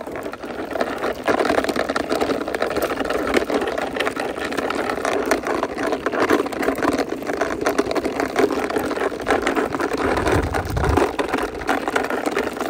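Plastic toy sports motorbike pushed by hand over rough concrete, its plastic wheels rolling with a steady rattling, clicking noise. A brief deeper rumble comes about ten seconds in.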